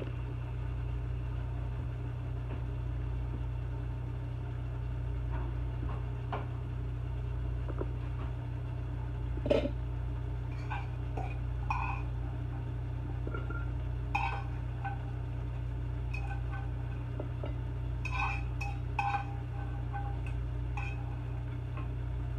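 A utensil clinking and scraping against a skillet as food is served onto a plate: a knock, then a dozen or so scattered clinks with a short ring, over a steady low hum.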